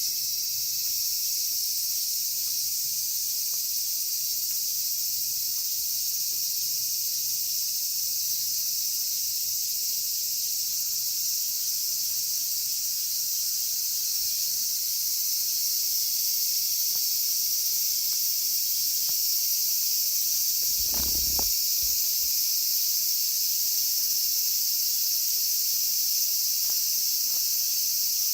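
Cicadas singing in a loud, steady, high-pitched drone without a break. A brief low thump comes about two-thirds of the way in, with a few faint clicks along the way.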